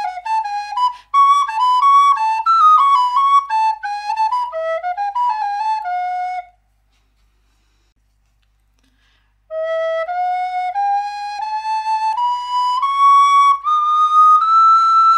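Wooden svirel, a birch block flute in E with a cedar block, playing a quick melody of many short notes that stops about six and a half seconds in. After about three seconds of silence it plays a slow rising scale, one held note after another, climbing to the top.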